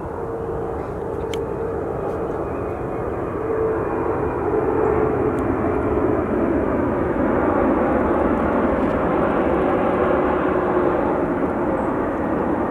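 Airplane flying over: a steady engine drone that grows louder over the first few seconds and then holds, its hum sinking slightly in pitch.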